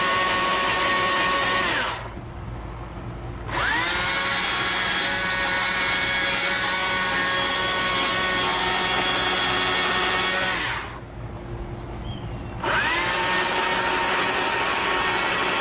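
Electric Stihl chainsaw whining at full speed while rounding over and blending the owl carving. It stops about 2 seconds in, spins up again with a quick rising whine a second and a half later, runs steadily, stops about 11 seconds in, then spins up once more near the end.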